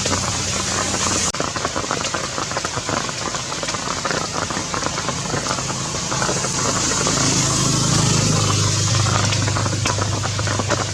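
Heavy rain falling in a dense hiss of many small pattering drops. A low steady hum, like an engine, comes up about seven seconds in.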